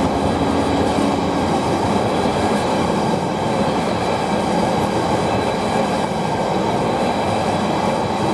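Freight train wagons rolling steadily past close by: a continuous rumble of wheels on rail. The Class 66 diesel locomotive's engine hum fades out in the first second.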